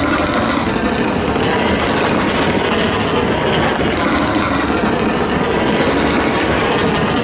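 A dense fireworks barrage fired from the sides of the Taipei 101 skyscraper: many bursts run together into a loud, steady rumble with fine crackle above it and no single bang standing out.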